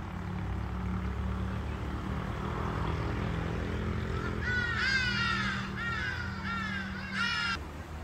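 A large bird giving a quick series of about six loud, harsh calls over three seconds, beginning about halfway through and cut off suddenly near the end, over a steady low hum.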